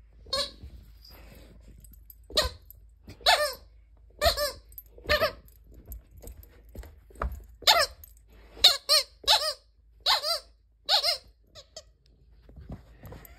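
Squeaky dog toy squeaking again and again as a large dog chews it: about a dozen short, high squeaks at irregular intervals, some in quick pairs.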